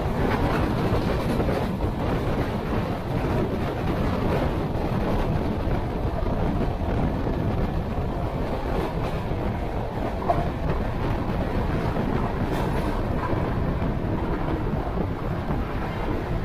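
Passenger coach running at about 105 km/h: a steady rumble and clatter of wheels on the rails, with wind rushing past.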